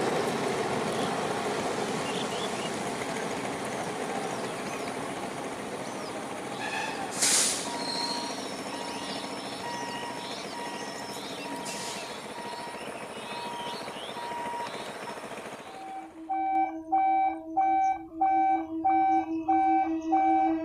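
Electric multiple unit local train running past, its noise slowly fading as it draws away, with two sharp clicks and a faint repeated beep midway. About three-quarters of the way in, the train sound gives way to music with a steady pulsing beat.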